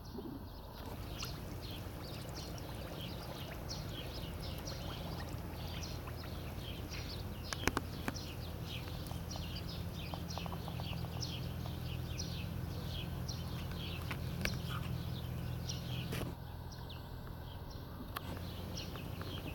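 Outdoor ambience at a reedy pond: many short, high, falling chirps repeat over a steady low hum, with a couple of faint clicks.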